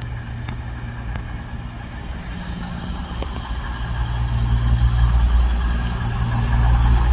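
A motor vehicle's engine running with a steady low drone, growing louder from about three seconds in.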